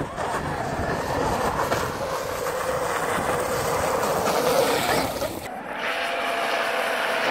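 Traxxas X-Maxx RC monster truck's electric motor whining at speed, with the rush of water spray as its tyres skim across the lake surface. The sound changes abruptly about five and a half seconds in.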